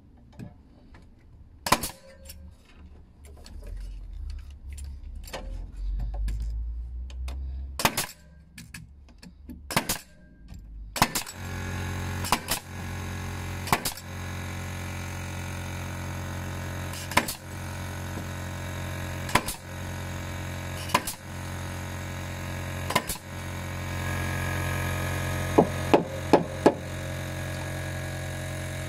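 A Bostitch Strapshot pneumatic metal-connector nailer firing nails through steel joist hangers into timber joists: sharp single shots every second or two, with four quick shots near the end. A steady machine hum starts about eleven seconds in and runs under the shots.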